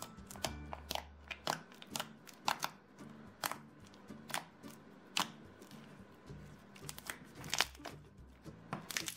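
Red glueless slime made with peel-off lipstick and shaving gel being pressed and pulled apart between the fingers, giving sharp little pops and clicks about once or twice a second as air pockets in it burst. Quiet background music plays underneath.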